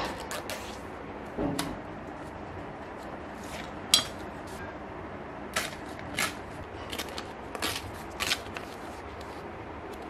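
Sheet of stiff chart paper being handled by hand: scattered rustles and crackles as it is flexed and pressed flat, with one sharp click about four seconds in and a few smaller ones later, over a faint steady hiss.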